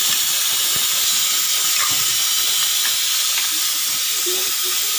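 Steady, loud hiss of steam from stovetop cooking.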